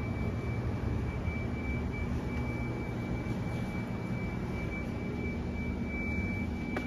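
Steady low rumbling hum of a large store's background, with a thin, constant high-pitched tone over it.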